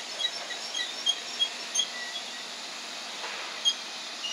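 London Underground 1992 Stock tube train running past at low speed as a steady rumbling hiss, with many short high squeaks and chirps scattered through it.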